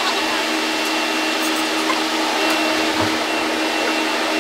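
An appliance motor running steadily, a loud even rushing noise with a low hum under it.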